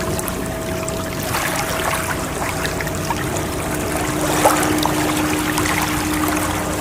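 Water trickling and splashing steadily, with a fine crackle of small drips. Over it, the ringing tones of a chime struck just before hang on and slowly fade.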